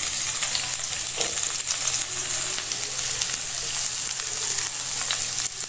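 Hot coconut oil sizzling steadily in a pan on a gas stove, frying crushed ginger and garlic, with scattered small crackles.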